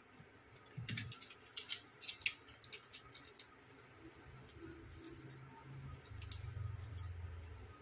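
Small sharp clicks and ticks of tweezers and plastic phone parts being handled, many in quick succession over the first few seconds and a few more later. A low hum comes in near the end.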